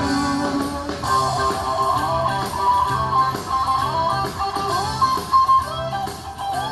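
Instrumental break in a country-pop song: an electric guitar plays a lead melody with sliding bends over strummed guitar and bass accompaniment.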